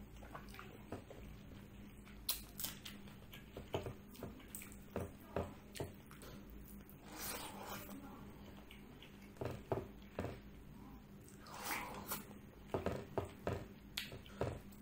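Close-up eating by hand: fingers mixing rice with mutton paya gravy on a plate make wet squishing, mixed with chewing and lip smacks, heard as many short sharp clicks.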